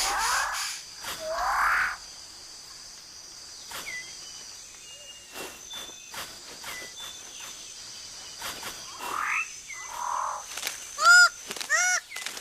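Tropical rainforest birds and insects calling. Two rising whistled sweeps open it, over a steady high insect hum with scattered short whistles. Near the end a bird breaks into a fast run of loud, harsh, arched calls, about three a second.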